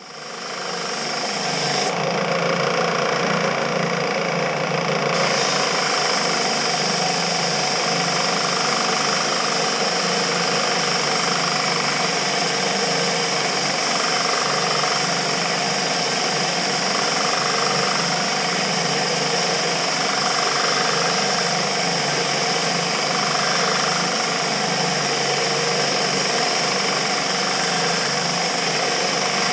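An electric woodworking machine's motor starting up and then running steadily and loudly, with a constant whine.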